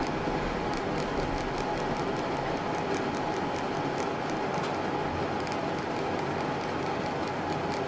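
Small hand-held enamel sifter being tapped and shaken over copper pieces so that black vitreous enamel powder sifts through the mesh: a run of light, irregular clicks over a steady background hiss.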